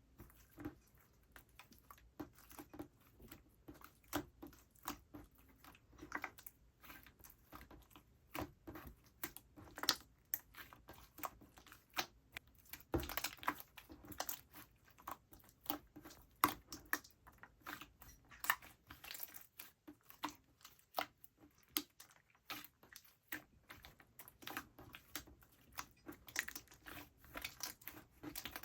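Slime being squished and stretched by hand, giving a steady run of small irregular clicks and crackling pops.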